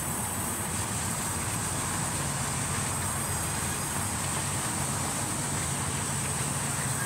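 Bench circular saw ripping a wooden plank lengthwise: a steady high whine over a low motor hum, running without a break.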